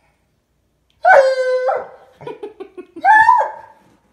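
A dog howling: after about a second of quiet, one loud drawn call, a few short yips, then a second, higher call near the end.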